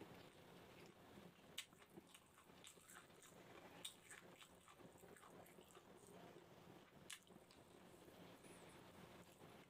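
Faint chewing and soft wet mouth sounds of a person eating rice and grilled chicken gizzards by hand, with three short sharp clicks spread through.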